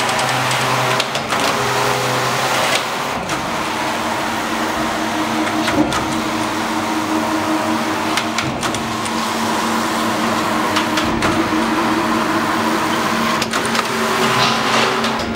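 Shima Seiki SES234CS computerized flat knitting machine running, its carriage moving along the needle bed with a steady mechanical whir and hum and occasional sharp knocks.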